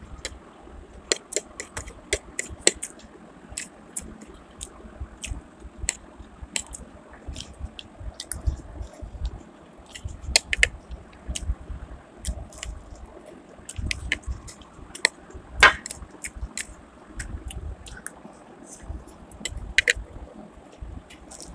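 A person eating chowmein noodles with a fork: chewing and slurping, with many sharp, irregular mouth clicks and fork taps. One louder clink rings out about two-thirds of the way through.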